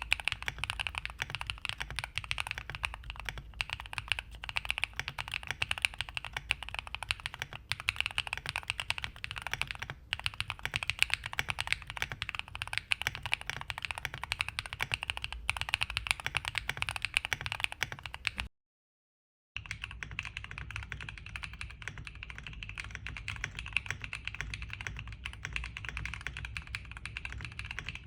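Continuous fast typing on a Neo70 aluminium keyboard with factory-lubed Neo white switches and cherry-profile PBT keycaps, a dense run of keystrokes. The sound drops out completely for about a second, about 19 s in, then the typing resumes with a slightly different, softer character.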